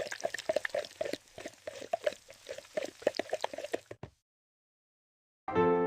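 Cake batter being stirred in a bowl, quick wet slapping and clicking strokes that stop after about four seconds. After a short silence, music begins near the end.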